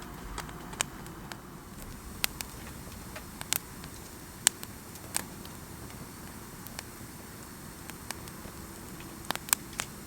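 Sparse, sharp crackles and clicks at irregular intervals over a steady low background noise.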